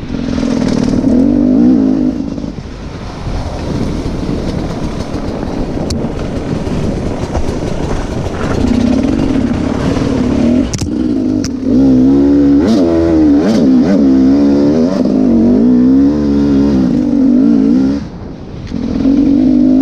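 Enduro motorcycle engine being ridden, revving up and down with the throttle so its pitch keeps rising and falling. It is loudest and revs hardest in the latter half, easing off briefly near the end, with a few sharp knocks.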